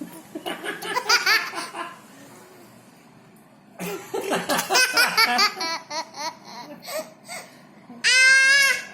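Baby laughing in two bouts of short, quick giggles with a pause between them, then a long high-pitched voice sound near the end.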